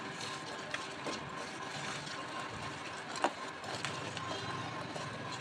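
Thick besan (gram flour) batter being stirred in a plastic bowl: irregular scraping and soft clicks of the utensil against the bowl, with one sharper click about three seconds in.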